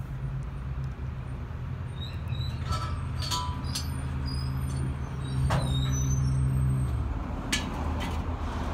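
Propane dispenser pump motor running with a steady hum while cylinders are filled, then cutting off about seven seconds in, with metallic clicks and clanks of valves and tank handling over it.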